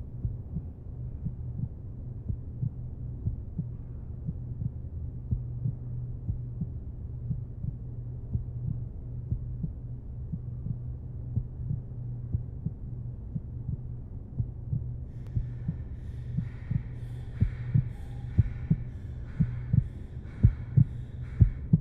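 A low, steady droning hum with soft thumps about once or twice a second, from a film soundtrack's sound design. The thumps grow louder and more regular near the end. From about fifteen seconds in, a faint, higher, wavering tone joins.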